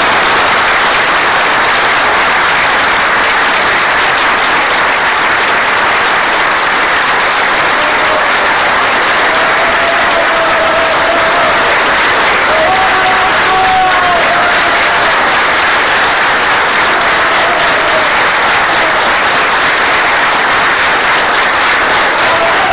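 A crowd applauding loudly and steadily, a dense continuous clatter of many hands clapping.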